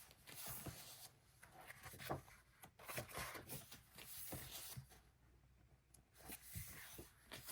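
Faint handling of paper and card: soft rustles and scattered light taps as printed photos are handled.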